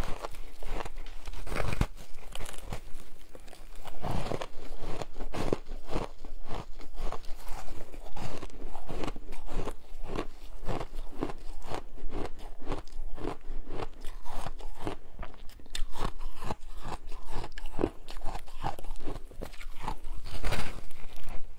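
Close-miked biting and chewing of packed, coloured shaved ice: a quick, continuous run of sharp crunches as the frozen chunks are bitten off and chewed.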